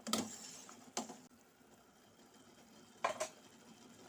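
Metal spoon knocking against a cooking pot: two knocks about a second apart, then a third, louder one about three seconds in.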